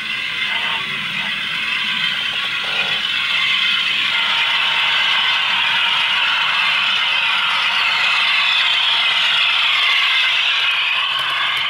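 OO gauge model train running along the track, a steady mechanical rattle from the wheels and mechanism that grows a little louder.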